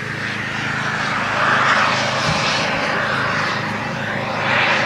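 Turbine-powered model jet flying past, its rushing engine noise swelling twice: once about a second and a half in and again near the end.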